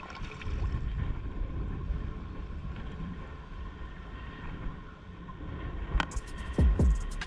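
Wind buffeting the microphone by the water, a steady low rumble, with a sharp click about six seconds in and two loud low thumps near the end.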